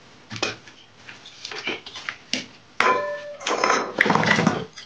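Metal knocks and clanks as the rusty housing of an old water-pump motor is handled and shifted, with one ringing clang about three seconds in followed by a burst of rattling clatter.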